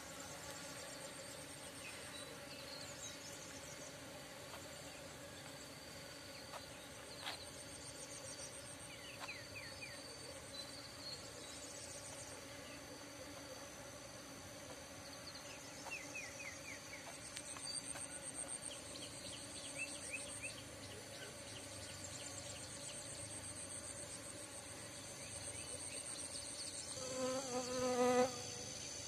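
Field insects: a steady buzz with high, pulsing trills over it, and scattered short high chirps. Near the end a louder pitched call, about a second long, stands out.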